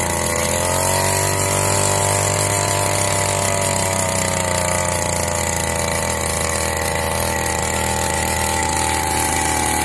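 Backpack brush cutter's 50 cc two-stroke engine running under throttle. It revs up within the first second, then runs steadily as its spinning metal blade cuts through grass.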